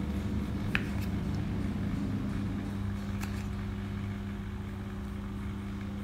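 A kitchen knife slicing through a tomato on a wooden cutting board, with a few short clicks as the blade meets the board, over a steady low hum.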